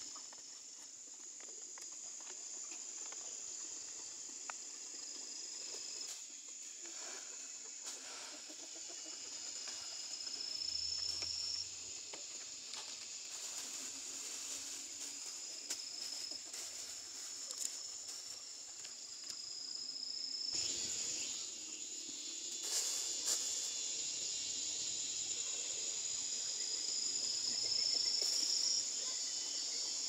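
Insects trilling steadily at a high pitch, with short rising whistle-like calls every few seconds and a few faint clicks.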